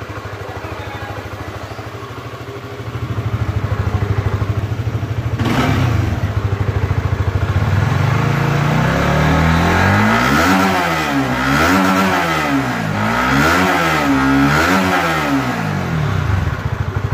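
Honda CBR150R K45 single-cylinder engine running through a Honda CBR250RR exhaust muffler: it idles steadily, its note steps up about three seconds in, a short sharp noise comes about halfway through the first third, then the throttle is blipped about four times, the revs rising and falling each time.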